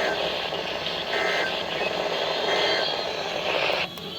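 Emergency Alert System SAME digital data bursts marking the end of a weather warning: short buzzy chirps about a second and a half apart, over a steady radio hiss. The hiss cuts off suddenly near the end.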